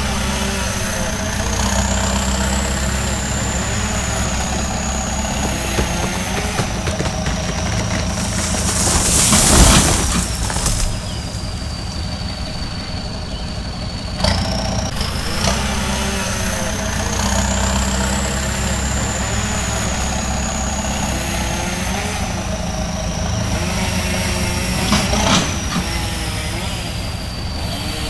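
An engine running steadily in a sound clip that repeats about every 14 seconds. Each pass has a brief loud rush of noise about two-thirds of the way through.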